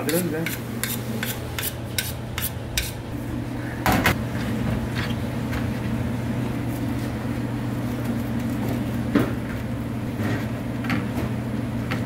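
Dishes and utensils clinking and knocking: a quick run of light clicks in the first few seconds, one louder knock about four seconds in, then scattered clinks over a steady low hum.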